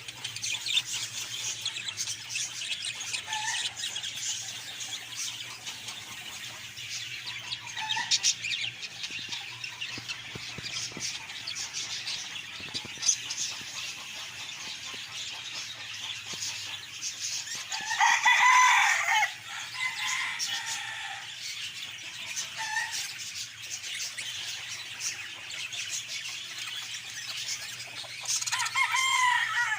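Caged budgerigars chattering and chirping continuously in a dense high twitter. Two louder, longer pitched calls stand out: one about two-thirds of the way through and one near the end.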